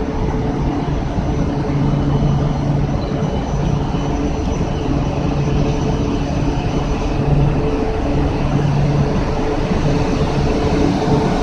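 E4 series Max double-decker Shinkansen pulling out of the platform and gathering speed, a steady running noise with a low hum as its cars begin to slide past.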